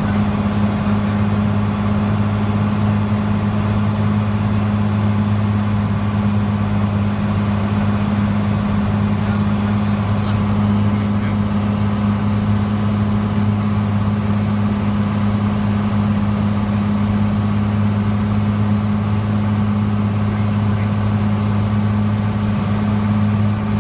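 Steady drone of a Cessna 182T's six-cylinder Lycoming engine and propeller heard inside the cabin, holding one unchanging pitch at approach power.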